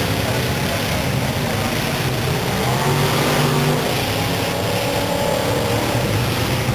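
Engines of full-size demolition derby cars running and revving, their pitch rising and falling through the middle.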